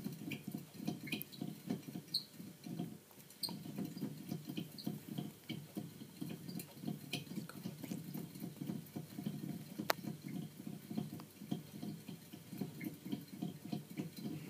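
Clear plastic exercise wheel turning as a small pet rodent runs in it: a quick, steady low patter of feet and wheel, with a few light clicks and one sharp click about ten seconds in.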